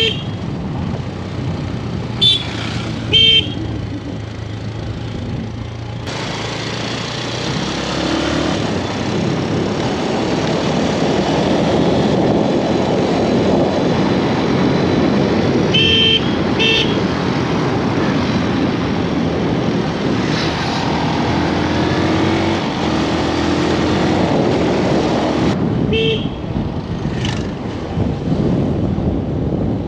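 Vehicle horn giving short double toots, three times over, over steady road traffic and engine noise.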